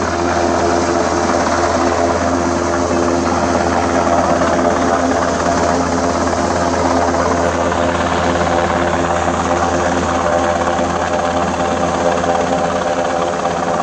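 Searching helicopter overhead, its rotor and engine running steadily.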